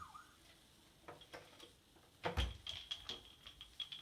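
A few light knocks, a louder thump about two seconds in, then a quick run of sharp clicks, some with short high beeps.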